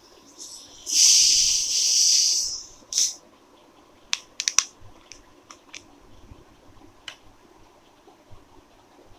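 A bottle of Sprite being opened: the fizz hisses out hard for about a second and a half, then again briefly, followed by a few sharp clicks.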